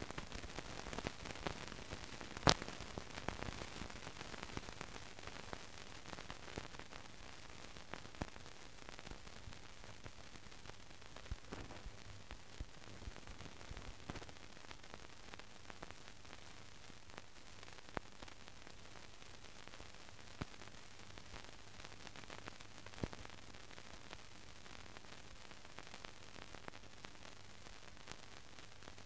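Steady hiss with scattered clicks and crackles, the loudest click about two and a half seconds in: the surface noise of an old newsreel film soundtrack running with no programme sound on it.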